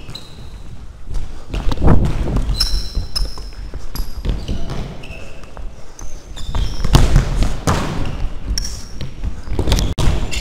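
Sneakers squeaking on a sports-hall floor several times, short high squeals, amid thuds and loud rustling from the chest-mounted camera wearer's own running, all with the ring of a large hall.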